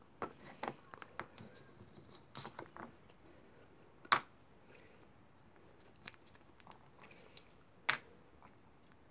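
Nesting doll being opened and its halves handled: scattered light clicks and scrapes, with two sharper knocks about four and eight seconds in.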